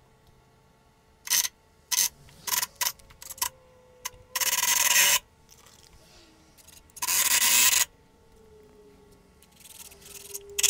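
Cordless drill driving long deck screws into 2x4 lumber: a few light clicks, then two short grinding bursts of under a second each as the screws bite into the wood, with a faint motor whine between them.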